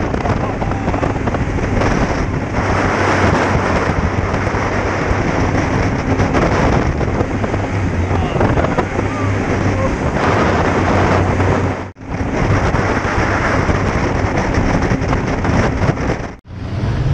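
Jet boat running at speed: rushing water and wind buffeting the microphone over the engine's steady low hum. The sound cuts out for an instant about twelve seconds in and again near the end.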